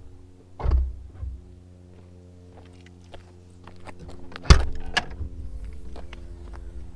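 Two heavy thunks about four seconds apart in a Mini Cooper S, the second louder and followed by a low rumble, over a steady hum.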